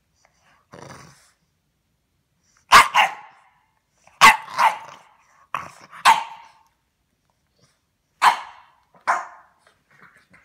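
Bulldog barking: a soft low grumble about a second in, then about seven short, sharp barks, some in quick pairs.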